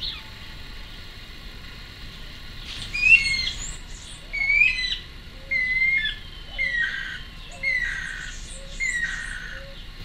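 Guira cuckoo calling: a series of about seven loud, falling whistled notes, roughly one a second, starting about three seconds in, the later notes longer and lower.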